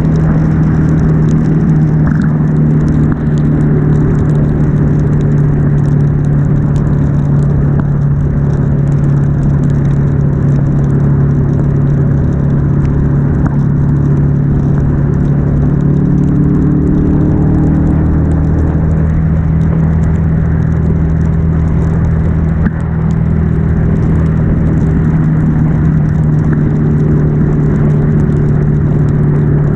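Ducati Monster S2R's air-cooled L-twin engine running steadily at highway cruising speed, over a constant hiss of wind and wet road spray.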